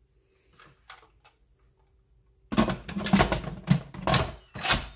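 Instant Pot pressure cooker lid being set on the inner pot and turned into place: a few faint clicks, then, about halfway through, a quick run of loud clattering knocks and scrapes of plastic on metal.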